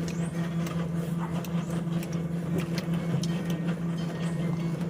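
A steady, even mechanical hum, with light clicks and taps scattered through it.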